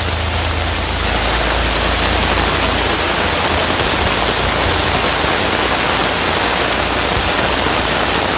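Heavy rain pouring onto a flooded road, a steady hiss of rain on standing water. Near the start a van drives through the floodwater with a low rumble that fades over the next few seconds.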